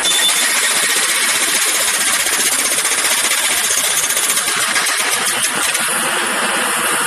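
Jackhammer hammering continuously, a rapid, steady run of blows that barely changes in level.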